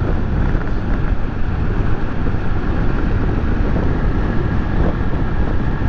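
Honda Titan 125's single-cylinder four-stroke engine running steadily at cruising speed, mixed with wind rushing over the microphone.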